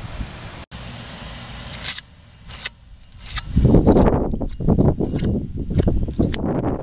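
A flat metal tool scraping in short, irregular strokes around the steering knuckle's wheel-bearing bore, clearing off caked-on dirt. The scraping starts about halfway through, after a few light metallic clicks.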